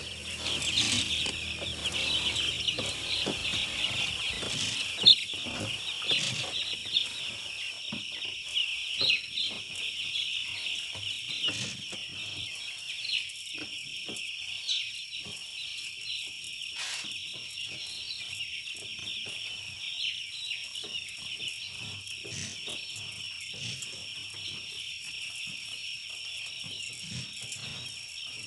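A large flock of young broiler chickens peeping continuously, a dense chorus of high chirps, a little louder in the first several seconds.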